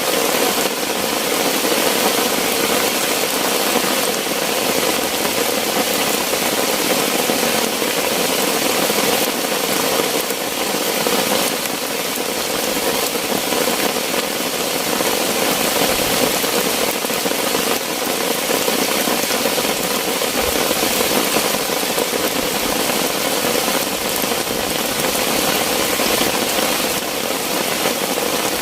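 Heavy rain falling in a steady downpour, an even rushing hiss with no breaks.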